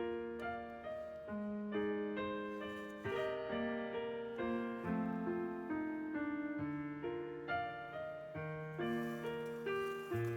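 Background music: a slow, gentle piano melody with chords, each note struck and fading.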